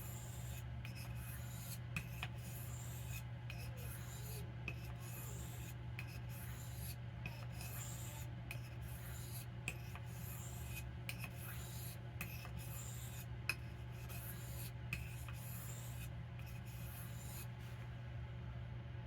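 Jack knife blade drawn across an Arkansas sharpening stone in repeated even strokes, a soft scraping hiss about one to two strokes a second that stops shortly before the end. A steady low hum runs underneath.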